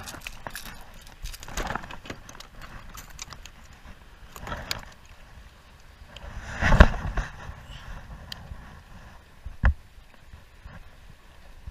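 Fishing gear being handled aboard a plastic kayak: scattered knocks and rustles, the loudest about seven seconds in, with a sharp single knock a couple of seconds later.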